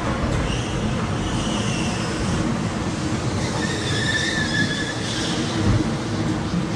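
Amusement-ride train running along its track: a steady rumble with faint high wheel squeals now and then.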